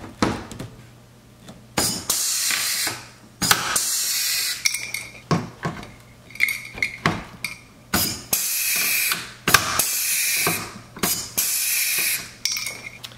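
Pneumatic pop-rivet gun setting blind rivets: about five hissing air bursts of roughly a second each, with sharp snaps as each rivet's mandrel breaks off.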